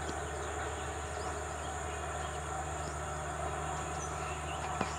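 Steady outdoor background noise: a low hum and even hiss with faint high chirps, and one short sharp click near the end.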